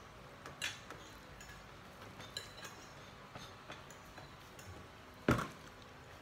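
Quiet eating sounds at a meal: scattered light clicks and taps of hands and a spoon on plates and a clay pot, with one louder sharp click about five seconds in.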